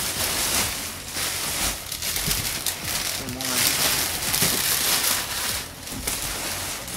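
Crumpled packing paper rustling and crinkling continuously as it is pulled out of a shipping box and handled.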